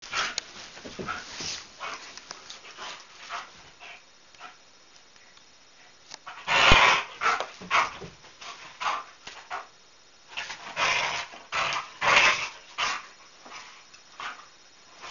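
A whippet and a greyhound playing rough over a toy, making short, irregular dog noises. The loudest comes about seven seconds in, and there is a quick flurry between about ten and thirteen seconds.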